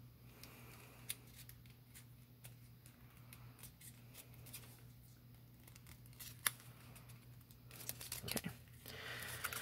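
Faint crisp ticks and rustles of a pleated cardstock strip being pinched and flexed back and forth along its score lines in the hands, a little louder near the end.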